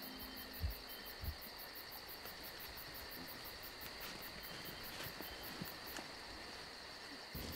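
Faint chorus of insects chirping in rapid, even pulses over a steady high buzz, with two soft low thumps about a second in.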